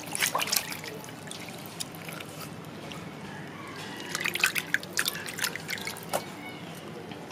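Water splashing and dripping in a stainless steel bowl as hands wash and lift out whole squid, in two bouts: one at the start and another about four seconds in.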